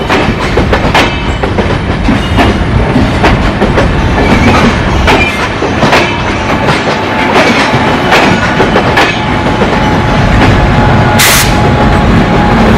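Passenger train coaches rolling past at speed, wheels clicking over rail joints over a steady rumble. There is a short rush of hiss about eleven seconds in.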